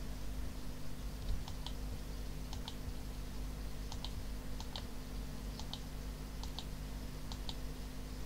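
Computer mouse clicked repeatedly to select vertices one at a time: short sharp double clicks, about one a second, over a steady low hum.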